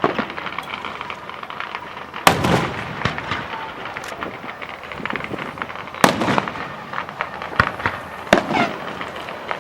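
Aerial fireworks bursting: loud bangs at the start and about two, six and eight seconds in, with crackling and smaller pops between them.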